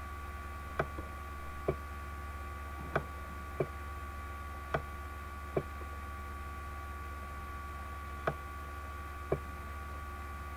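Computer mouse clicking: about eight short, sharp single clicks at uneven intervals, over a steady electrical hum.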